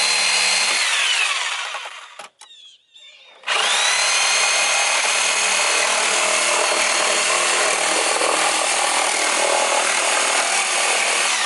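Handheld power saw cutting a chicken-coop basket: its motor whine falls away about a second in, and after a pause of about two seconds it starts again and runs steadily until it winds down at the end.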